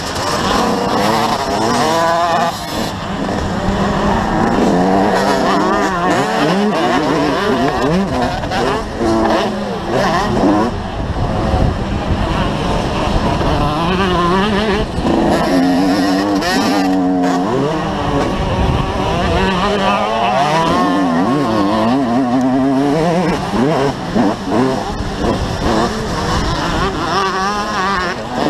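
Motocross bike engine heard from on board, revving up and dropping back over and over as the rider accelerates out of corners and shifts through the gears.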